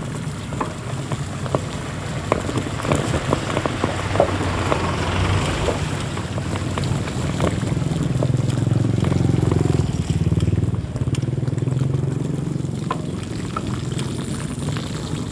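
Ride noise from a bicycle on a rough, wet street: a steady low rumble with scattered sharp knocks and rattles, mostly in the first half. A motorcycle passes close, and the rumble is loudest around the middle.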